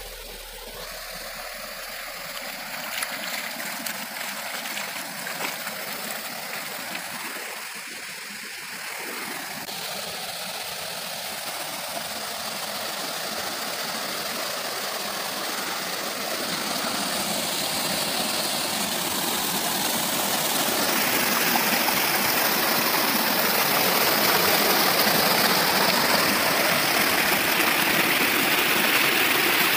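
Small monsoon-fed forest stream rushing and splashing over rocks in a little cascade, a steady water noise that grows louder as it goes on.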